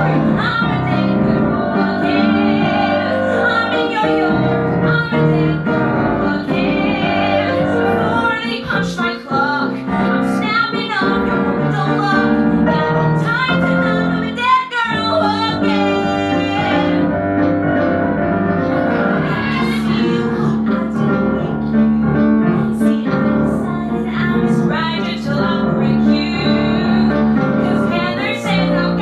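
A woman singing a musical-theatre song solo into a microphone, accompanied by piano played on a Korg stage keyboard.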